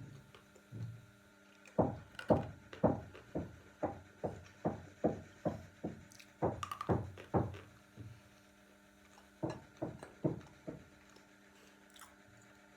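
Knocking from neighbours' renovation work coming through the building: a run of sharp blows about two a second, a pause, then a few more.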